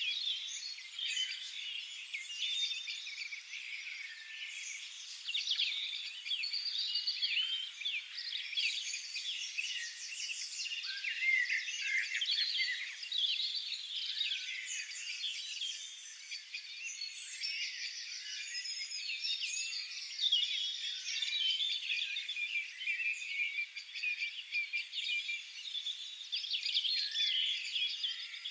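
Several songbirds singing at once, a dense chorus of overlapping chirps, short whistled phrases and rapid trills that never lets up.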